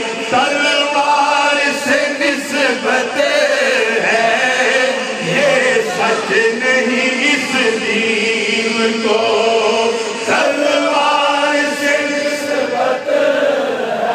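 Men's voices chanting an Urdu devotional naat together, long held notes sung without a break.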